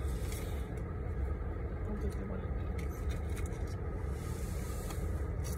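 Steady low rumble inside a car cabin, with a few faint clicks of a plastic fork and takeout tray.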